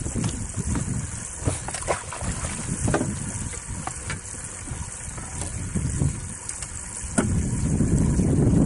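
Wind rumbling on the microphone, with a few light clicks and knocks. The rumble eases at the start and comes back suddenly about seven seconds in.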